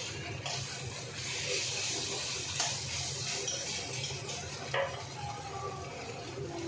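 A metal spatula stirring and scraping mutton pieces around a large aluminium wok as they fry with a sizzle, with a few sharp scrapes or clinks, over a steady low hum.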